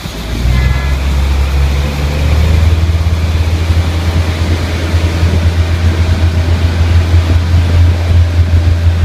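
Heavy engine rumbling low and steadily, taking on an uneven throb from about halfway through.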